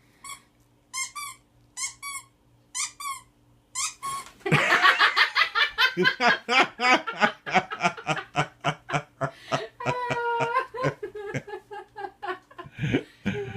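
A squeaky plush dog toy squeaking about five times in quick short squeaks, followed from about four seconds in by loud, hearty laughter.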